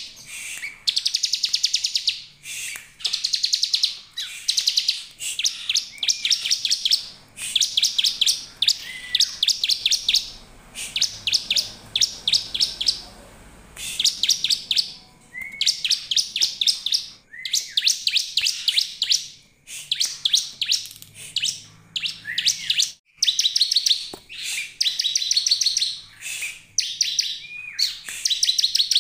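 Bar-winged prinia (ciblek) calling: rapid trills of clicking notes, each about a second long, repeated over and over with short gaps, some opening with a brief upslurred note.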